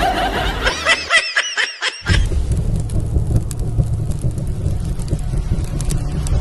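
Brief high, quickly repeated chirping sounds. About two seconds in, a fire-and-explosion sound effect sets in with a deep, steady rumble that carries on.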